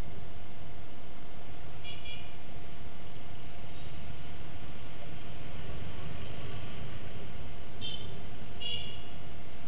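Motorbike horns giving short high-pitched beeps, once about two seconds in and twice near the end, over the steady low rumble of scooter traffic and wind on the helmet or handlebar camera.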